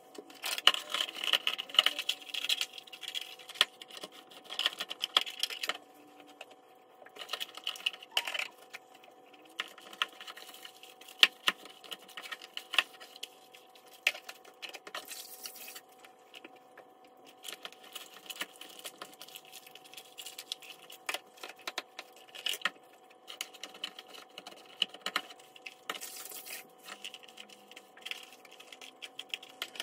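Household cleaning: a cloth rubbing and scrubbing across the counter and tiles, with scattered clicks and knocks as small items are picked up and set down on the worktop. A faint steady hum runs underneath.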